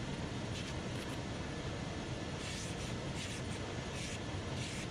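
Cobbler's finishing machine running steadily with a constant motor and dust-extraction hiss. In the second half come a few short scratchy bursts as a leather sole is pressed against its sanding wheel.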